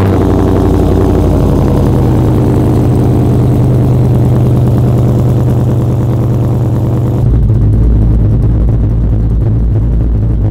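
Freshly built truck engine with a new cam, idling just after start-up with a slight choppy lope through the exhaust. The sound gets deeper and choppier about seven seconds in.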